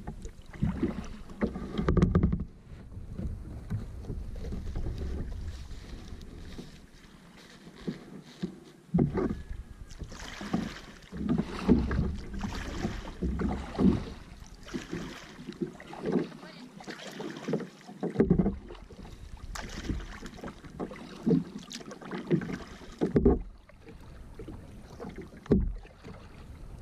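Double-bladed kayak paddle dipping and pulling through the water in repeated strokes, each with a splash and trickle of water, over a low rumble of wind on the microphone.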